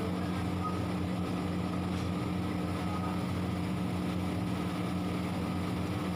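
A steady low mechanical hum with an even hiss over it, from kitchen equipment running beside a large kadhai of sliced onions frying in oil.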